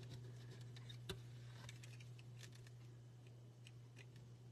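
Faint, scattered light clicks and taps as small paper pieces and a hand tool are handled on a craft mat, over a low steady hum.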